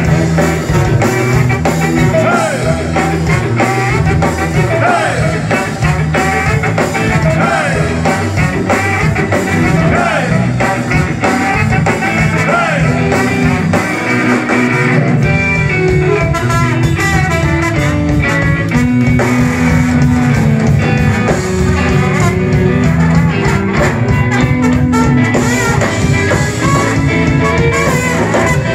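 A ska band playing live: trombone and trumpet over electric guitar, bass and drum kit, with singing.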